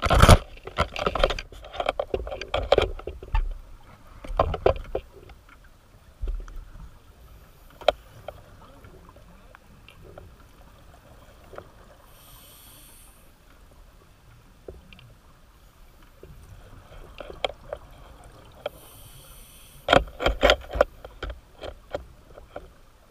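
Tiger shark biting an underwater camera housing: a dense run of loud clunks and scrapes of teeth on the housing in the first few seconds, then scattered clicks. A scuba diver's regulator exhales bubbles about twelve seconds in and again about nineteen seconds in, and another cluster of loud knocks comes about twenty seconds in.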